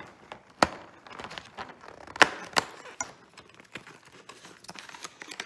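Cardboard door of a Lindt advent calendar being pried and torn open by fingers: a run of small clicks and crackles, with one sharp snap under a second in and two more close together a little after two seconds.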